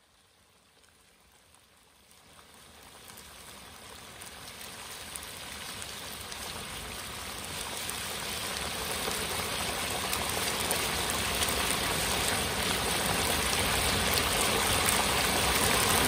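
Whole turkey being deep-fried in a tall stockpot of hot oil over a propane burner; the oil sizzles and bubbles, growing steadily louder from faint to strong.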